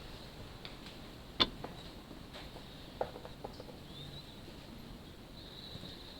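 A few isolated sharp clicks and knocks of hand tools and parts being handled during an engine teardown. The loudest is about a second and a half in and another is about three seconds in, over a low background with faint high chirps near the end.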